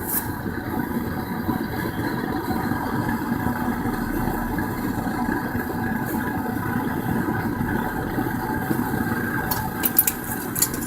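Propane burner of a small metal melting furnace running with a steady rushing noise, with a few sharp clicks near the end.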